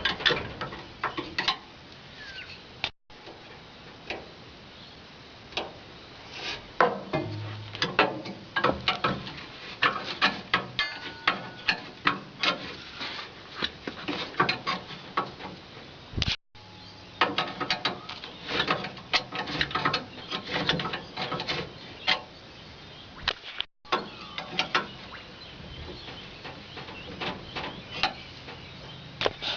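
Irregular clicks, knocks and scrapes of hand tools and metal being handled, broken by three very short gaps.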